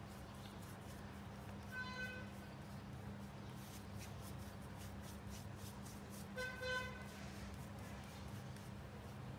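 Vehicle horn tooting twice in the distance, once about two seconds in and again near seven seconds as a quick double toot, over a steady low hum. Faint dabbing of a paintbrush through a stencil lies underneath.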